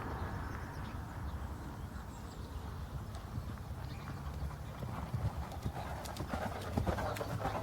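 A horse's hooves beating on the ground as it is ridden, the hoofbeats growing sharper and more frequent near the end, over a low steady rumble.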